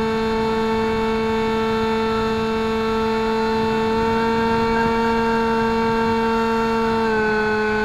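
Bixler RC foam plane's electric motor and pusher propeller whining steadily at cruise throttle over a rush of wind. The pitch rises slightly mid-way, then steps down about seven seconds in as the throttle is eased back.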